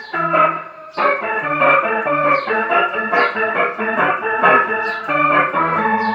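Electric guitar played through a Line 6 POD HD500 multi-effects unit and a Pignose G40V tube amp: a run of notes picked about twice a second, each starting sharply and ringing on. It is a sound test of the unit after repair of its fried A/D converters.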